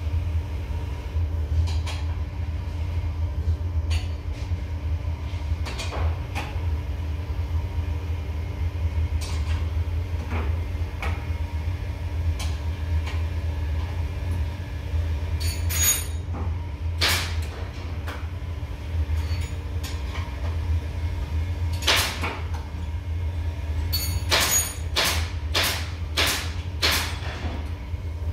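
Steady low hum of a workshop dust extractor running, with scattered clicks and knocks of hands adjusting the fence and tooling of a spindle moulder, and a quick series of knocks near the end.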